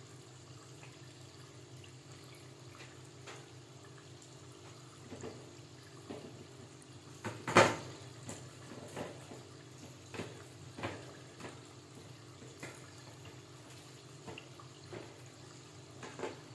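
Rice turon (glutinous rice rolled in spring roll wrappers) deep-frying in a pot of hot oil: sizzling with scattered pops and crackles, coming more often from about five seconds in, the loudest a sharp pop about halfway through. A steady low hum runs underneath.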